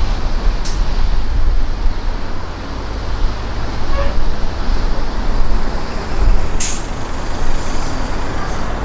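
Steady road and traffic rumble from driving on a city expressway, with a short high hiss about a second in and a louder, longer hiss near seven seconds, like the air brakes of a nearby bus or truck.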